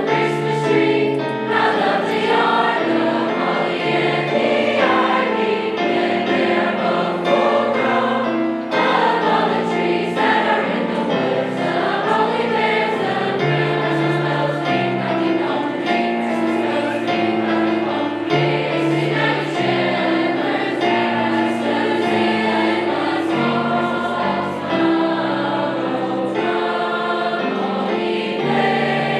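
Choir singing a Christmas song with instrumental accompaniment, the held notes changing chord every second or two.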